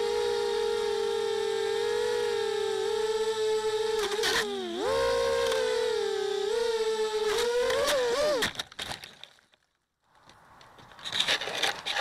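Whine of a 250-size FPV racing quadcopter's RCX 1804 2400kv brushless motors and propellers, picked up by its onboard camera, the pitch dipping and rising as the throttle changes. The whine stops about eight and a half seconds in, and scraping and rustling come near the end.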